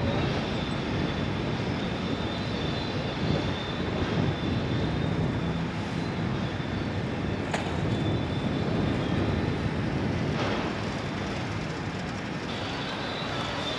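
Fire engines running at a fire scene: a steady low engine rumble with a faint high whine held throughout, and two short sharp knocks about three seconds apart in the second half.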